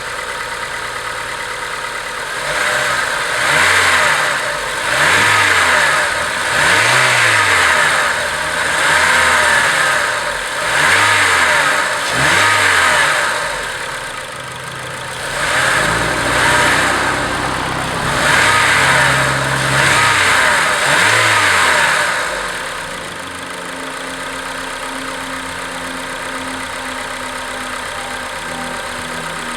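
Acura RSX Type-S's 2.0-litre four-cylinder engine idling and being revved in a series of about ten short blips, each rising and falling in pitch, then settling back to a steady idle for the last several seconds.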